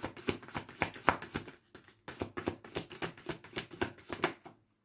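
A deck of tarot cards being shuffled by hand: a quick run of soft clicks and slaps, about five or six a second. It pauses briefly about a second and a half in and stops shortly before the end.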